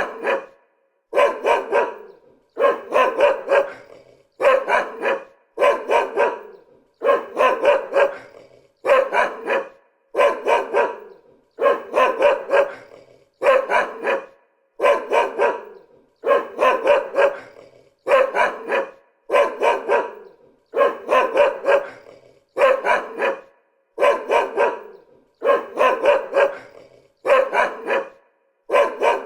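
Dog barking in quick runs of a few barks, the runs coming back evenly about every one and a half seconds with short silent gaps between.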